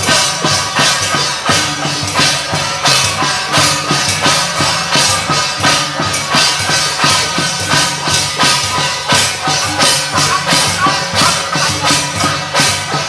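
Loud procession music led by drums and cymbals, beating a steady rhythm of about two strikes a second, with a sustained melody line above.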